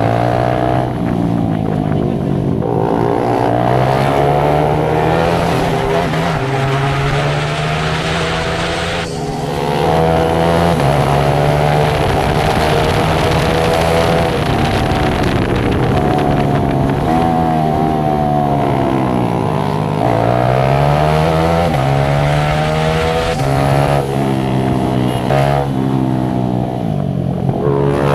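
Motorcycle engine running under way, its pitch climbing again and again as it accelerates and dropping back between climbs.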